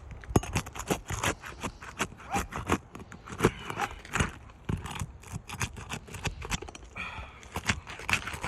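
Roof shingles being pried up and worked loose: a run of irregular sharp clicks, taps and scrapes as the shingles, stuck tightly together, are forced apart.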